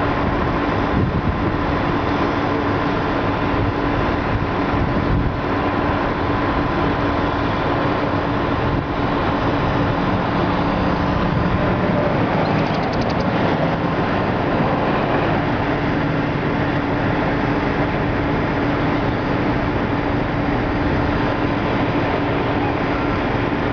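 Steady motor-vehicle noise with a constant engine hum, unchanging in level.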